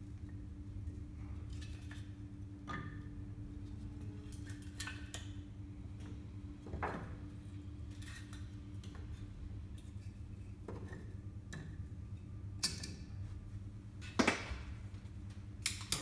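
Kindling and firelighters being set into a wood stove's firebox: scattered light clicks and knocks of wood over a steady low hum, the loudest knock a little under two seconds before the end.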